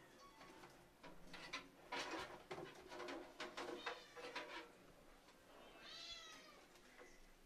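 A cat meowing once about six seconds in, a single call that rises and then falls in pitch. Before it comes a run of light clicks and knocks.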